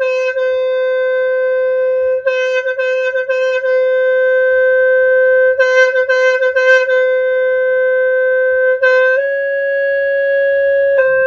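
Khmer snaeng horn holding one long steady note, broken every few seconds by a short run of quick fluttering pulses; the note steps up slightly in pitch about nine seconds in.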